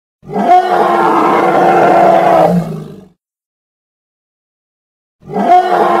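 Elephant call sound effect: one long call of about three seconds that sweeps up in pitch at the start, holds, then fades. After about two seconds of silence the same call starts again near the end.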